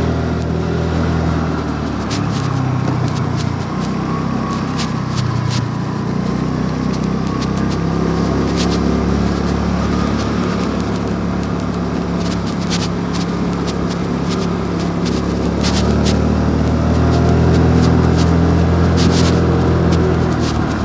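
Honda Dio 109 cc scooter's single-cylinder engine running under way, with road noise, getting louder about two-thirds of the way through. Scattered sharp clicks and scrapes sound over it.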